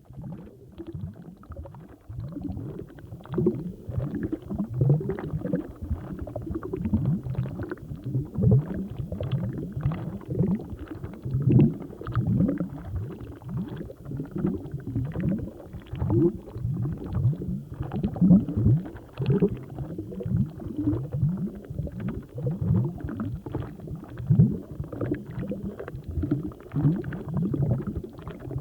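Water bubbling: a dense run of low, short rising bloops, several a second, like air bubbling up through water.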